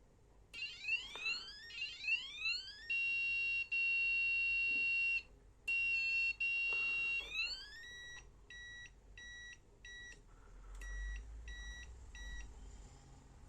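Electronic bike horn sounding through a piezo buzzer and cycling through its tones. First comes a run of quick rising siren sweeps, then a steady high beep held twice for a couple of seconds each, then two groups of short beeps, four and then three.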